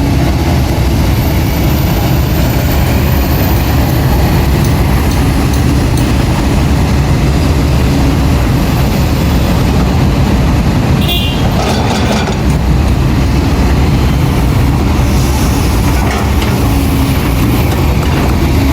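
Heavy diesel earthmoving machinery running steadily, an excavator working beside a dump truck. A brief sharp high-pitched sound cuts in about eleven seconds in.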